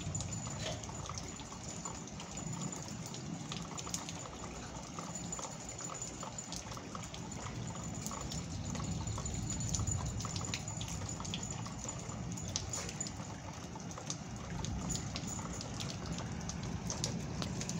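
Steady rain falling, with many separate drops and drips tapping close by.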